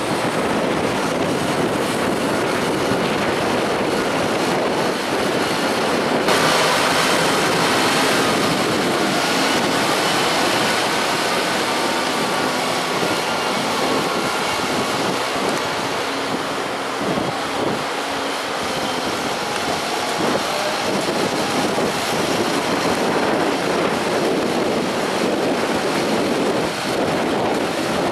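Fendt tractors' diesel engines running under load on a grass silage clamp: a Fendt 724 Vario pushing grass with a front buckrake and a Fendt Favorit 716 driving over the heap to roll it. The sound is a steady, continuous mechanical noise that turns brighter and hissier about six seconds in.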